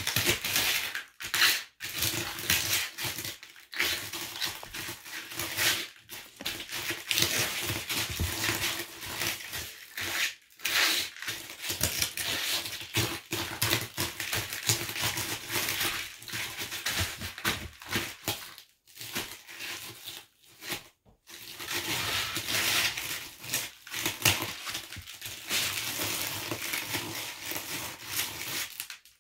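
Bare feet pressing and grinding Bugles corn snacks into crumbs: dense crunching and crackling in runs, broken by brief pauses between presses.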